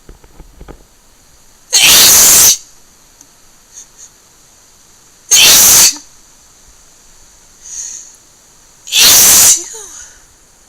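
A person sneezing wetly three times, about three and a half seconds apart, each sneeze loud and short, with a faint intake of breath before the third.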